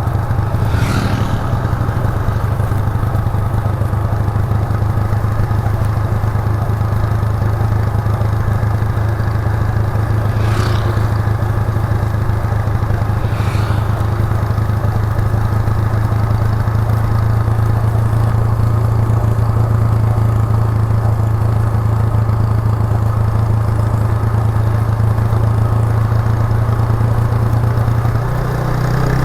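Suzuki GN125's single-cylinder four-stroke engine running steadily under way, its raw exhaust note heard from the rider's seat. Three brief sharp sounds cut through: one about a second in and two around the middle. Near the end the engine note briefly dips and shifts.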